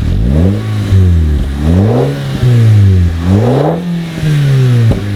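Audi TT Mk2 engine through a Milltek cat-back exhaust, revving up and dropping back several times, its pitch rising and then falling away. Brief sharp cracks come about two seconds in and again near the end.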